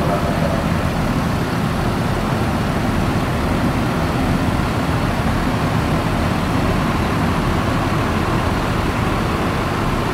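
Diesel engines of large coach buses running close by, a steady, unbroken low drone.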